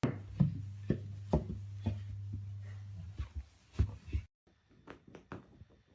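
A string of irregular light knocks and taps over a steady low hum. Both stop suddenly about four seconds in, leaving fainter scattered ticks and rubbing.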